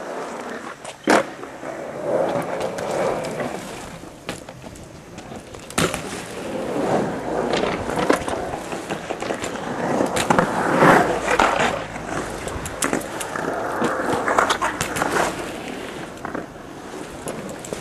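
BMX bike tyres rolling on a concrete bowl, the noise swelling and fading as the bike carves through the transitions. Sharp knocks of the bike hitting the concrete come here and there, a loud one about a second in.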